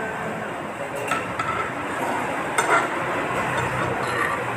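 Metal spoons and forks clinking and scraping against ceramic bowls and plates during eating, with a couple of sharper clinks about a second in and just past halfway, over a steady background hiss.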